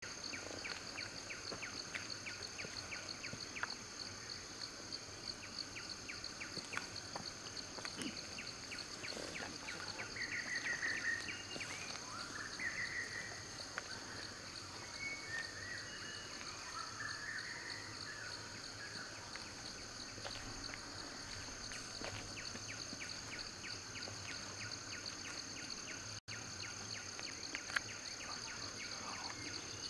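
Forest ambience: a steady, high insect chorus with a fast pulse, and a few bird chirps and calls about ten to thirteen seconds in.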